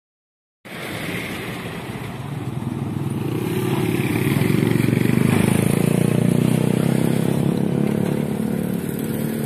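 After a brief silence, a motorcycle engine passes close by on the road, growing louder to a peak about halfway through and then easing off.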